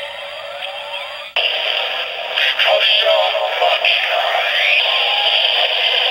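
Kamen Rider transformation-belt toy playing the Vicarya Zetsumerise Key's sounds through its small tinny speaker. A standby loop of repeating rising sweeps cuts over, about a second in, to a louder transformation sequence of electronic effects and a synthesized voice.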